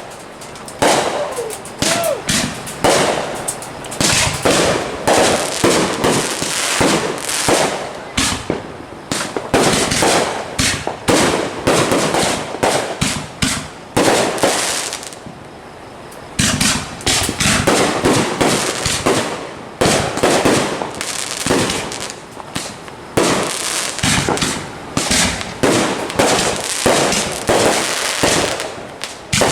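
Fireworks going off in rapid succession, a dense string of sharp bangs and cracks several per second, with a brief lull about halfway through.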